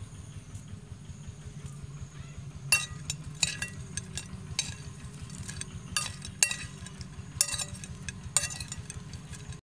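A metal spoon clinks and scrapes against a ceramic plate while tossing fried spiders in chilli salt. There is a string of about ten sharp clinks starting about a third of the way in, over a steady low hum.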